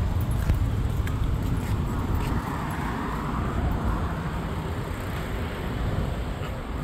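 Steady road traffic noise from a busy street: cars, trucks and motorbikes passing.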